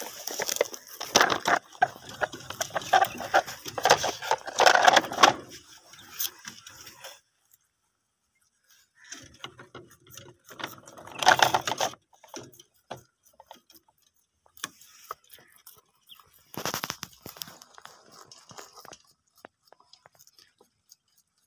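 Rabbits chewing and tearing at fresh green stalks in a plastic basket: dense crackling and crunching for the first six seconds or so. After a brief silence come scattered rustles and clicks, with louder bursts of crunching near the middle and again later.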